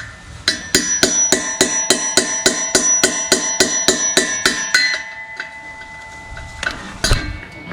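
Small hammer striking a steel chisel set against a red-hot rivet nut in an exhaust pipe flange, knocking it out: a quick, even run of about four ringing metal strikes a second for some four seconds, then one more hit near the end. The torch heat has destroyed the ring that holds the rivet nut in, so it drives out easily.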